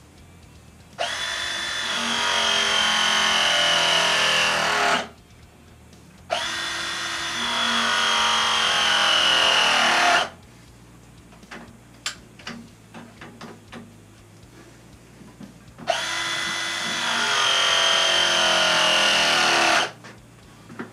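Ridgid ProPress tool crimping copper press fittings: three press cycles of about four seconds each, starting about a second, six seconds and sixteen seconds in, each a motor whine that sinks slightly in pitch as the jaws close. Light clicks of handling come between the second and third cycles.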